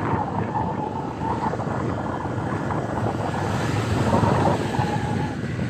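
A vehicle driving along a rough dirt road: steady engine and road noise, with a faint wavering whine that comes and goes.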